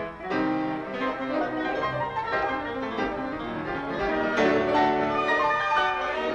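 Grand piano played with an orchestra's string section: fast piano figures over bowed violins in a romantic concert piece for piano and orchestra.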